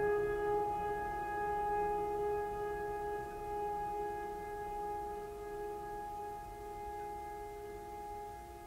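Background music: one long held note with ringing overtones, fading slowly.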